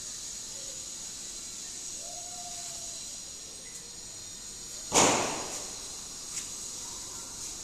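One loud, sudden thump like a slam about five seconds in, dying away over about a second, over a steady high-pitched hiss.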